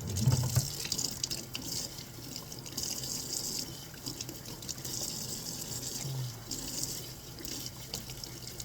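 Tap water running in a stream and splashing unevenly as a cat is rinsed under it, with a brief low bump near the start.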